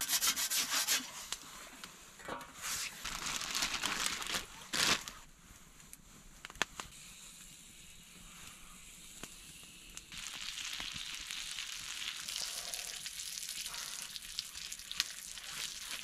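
Bacon frying in a skillet over a campfire, a steady sizzle that sets in about ten seconds in. Before it come scraping and handling noises as the strips are laid in the pan.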